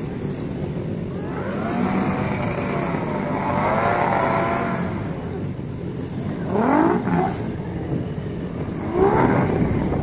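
Jet ski engines revving, their pitch rising and falling, over a steady rumble of engine, wind and water; two quick rising revs come about two-thirds of the way in and again near the end.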